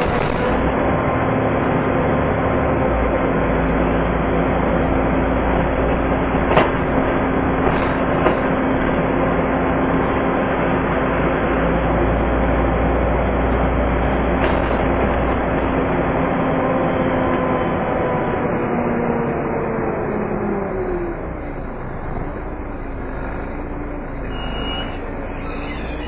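Volvo B7TL double-decker bus under way, heard from inside the passenger saloon: engine and road noise with the cooling fan's steady vacuum-cleaner-like whine. The whine falls in pitch and fades about three quarters of the way through, and a few light knocks sound now and then.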